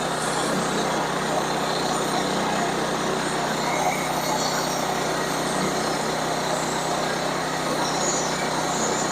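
Sawmill running steadily, its engine and saw cutting through a log, with an even drone throughout.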